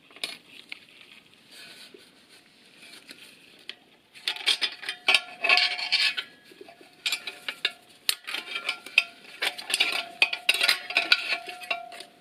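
Metal transmission parts clinking and scraping inside an aluminium automatic-transmission case as clutch plates and springs are handled and lifted out, starting about four seconds in. There is a thin ringing note under the clatter.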